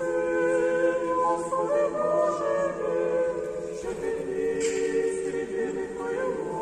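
Several voices singing unaccompanied liturgical chant in harmony, the Eastern-rite memorial service (panakhyda), with long held notes and brief breaks between phrases.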